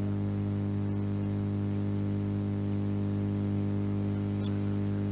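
Steady low electrical hum with a buzz of overtones over a faint hiss, the kind of mains hum a microphone setup picks up.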